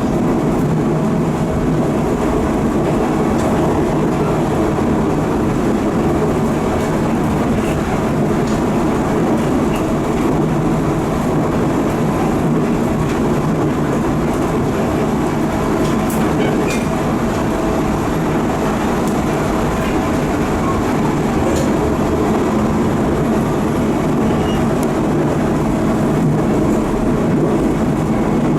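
Cabin running noise of a JR 719 series electric train car (KuMoHa 719-40): a loud, steady jet-like drone from its bogie over the wheel-and-rail noise. The uploader takes the noise to come from worn bearings somewhere in the running gear, knocking and vibrating with play.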